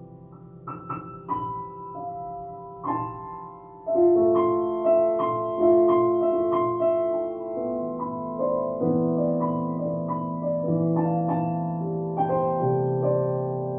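Digital piano played slowly. A few soft single notes come first, then from about four seconds in there are louder chords under a melody, with the notes held and overlapping.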